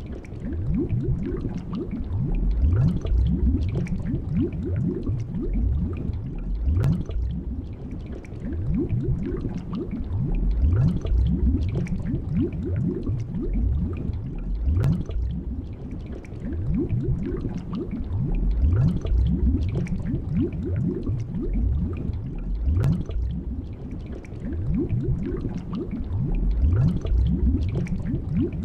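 Underwater ambience: a steady stream of low bubbling and gurgling, many small bubbles rising in pitch one after another.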